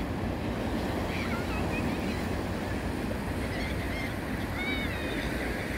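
Sea waves breaking and washing over shoreline rocks, a steady rush, with wind buffeting the microphone. A few short high-pitched calls sound about a second in and again near the end.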